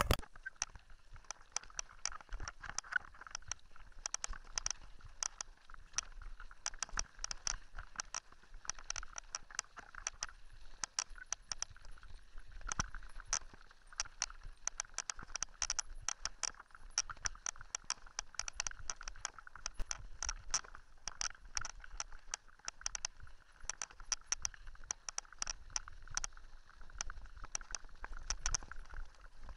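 Mountain bike rattling over a rough gravel track, picked up through the handlebar-mounted camera: a constant stream of small clicks and knocks from the bike and its tyres on loose stones, with a low rumble underneath.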